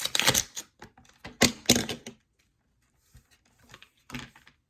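Plastic fidget-toy packaging being handled and pulled open by hand: several short bursts of crinkling and clicking, the loudest about a second and a half in.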